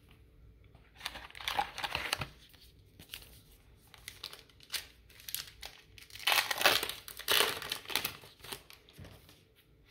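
A 2022 Topps Archives baseball card pack's wrapper being torn open and crinkled by hand, in irregular bursts: one about a second in, a short one near five seconds, and the loudest stretch about six to eight seconds in.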